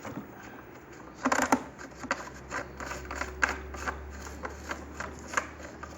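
Screwdriver unscrewing a screw from the plastic housing of a Hitachi CV-W1600 vacuum cleaner: a run of irregular clicks and scrapes, loudest about a second in.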